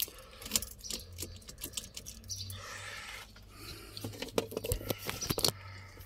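Car key and the bunch of keys on its ring rattling and clicking as the key is worked in the ignition lock, a run of irregular sharp clicks that comes thickest about four to five seconds in.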